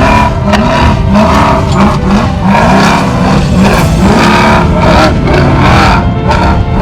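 Off-road race truck engine revving up and down over and over, about twice a second.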